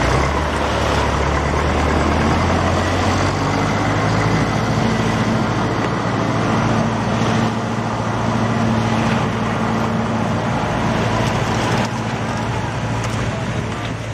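Tractor engine running steadily as it hauls a beach-seine net ashore, picking up speed about three seconds in and holding there, over the wash of surf.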